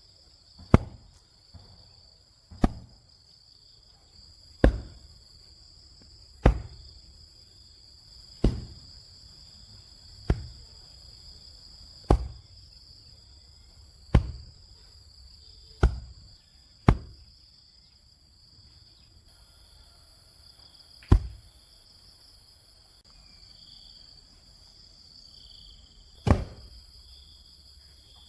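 Heavy dull strikes of a hand digging tool into earth, about one every two seconds, thinning out after the middle with two last blows near the end. Insects keep up a steady high chirring throughout.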